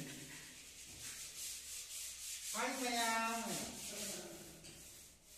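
Paint roller rolling over a painted wall, a rubbing hiss in repeated strokes. About three seconds in, a brief pitched tone rises and then falls.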